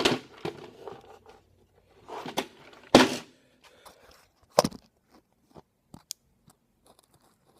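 Irregular metal knocks and scraping as a microwave oven transformer is handled and set in a bench vise, with the loudest clunks about three and four and a half seconds in, then only a few light clicks.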